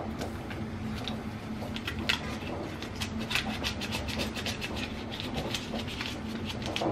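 Kool-Aid drink-mix packets being handled over the bowls: a dense run of short scratchy rustles and ticks, busiest in the middle.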